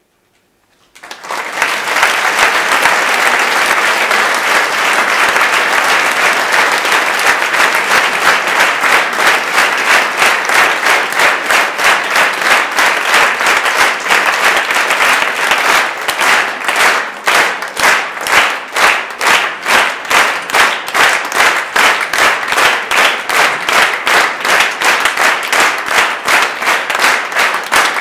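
About a second of silence, then an audience applauding. About halfway through, the applause turns into steady rhythmic clapping in unison.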